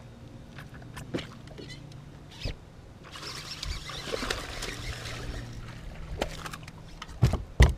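A hooked largemouth bass splashing and thrashing at the water's surface for a couple of seconds, starting about three seconds in, over a steady low hum. Two loud knocks near the end.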